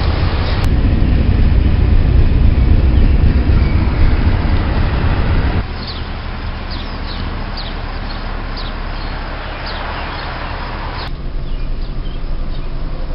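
A loud, steady low rumble for about five seconds, then a sudden change to a quieter background with repeated short, falling chirps of small birds.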